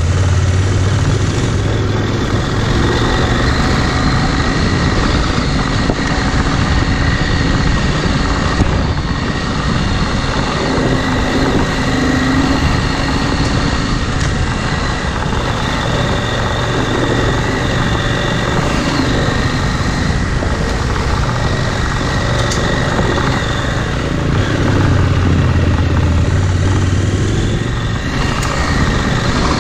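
Adventure motorcycle engine running steadily while being ridden, with a deeper, louder engine note just at the start and again a few seconds before the end.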